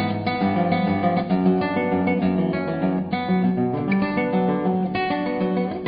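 Background music played on an acoustic guitar: a steady run of plucked notes.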